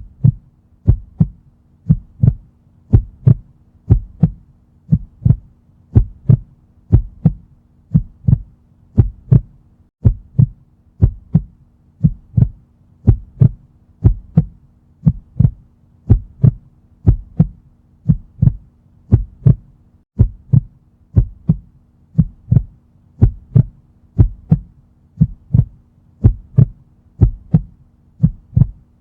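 Heartbeat sound effect: steady double 'lub-dub' thumps, about one beat a second, deep and low, over a faint steady hum.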